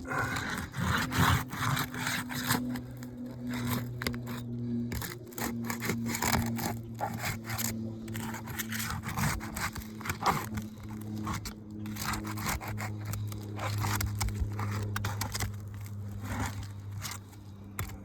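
Architectural asphalt shingles being pried up with a long nail puller: irregular scraping, rubbing and tearing as the bar slides under the shingles and breaks their seal, with occasional knocks. A steady low hum runs underneath.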